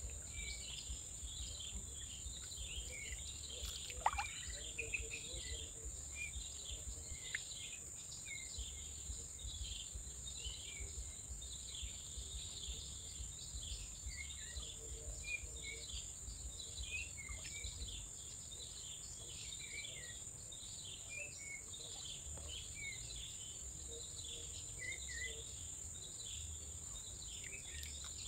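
Mangrove swamp ambience: a steady high-pitched insect drone with many short bird chirps scattered throughout, over a faint low rumble. One light tap about four seconds in.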